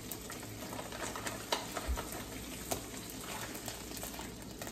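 Chili garlic sauce sizzling in a hot frying pan, with chicken broth poured in from a carton near the end. A few light clicks come over the sizzle.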